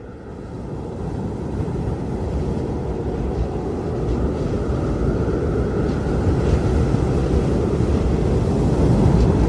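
Blizzard wind blowing in a dense, low rushing roar that fades in over the first couple of seconds and then holds steady.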